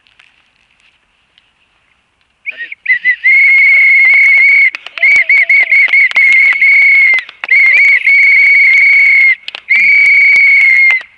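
A hand-held whistle blown very loudly in about four long blasts, starting about two and a half seconds in. The pitch is shrill and steady, with a fluttering trill in places.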